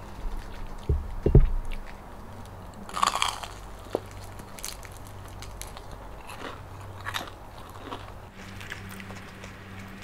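Close-up biting and chewing of a crisp dynamite lumpia (a chili pepper wrapped and fried), with a crunchy bite about three seconds in and small clicks of chewing after it. A couple of low thumps about a second in are the loudest sounds.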